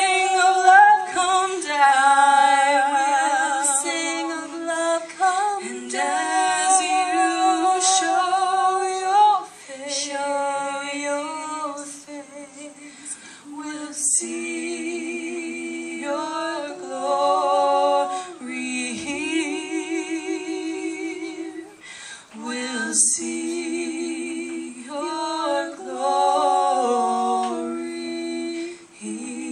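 Two women's voices singing together a cappella, holding long notes with vibrato, with short breaks between phrases.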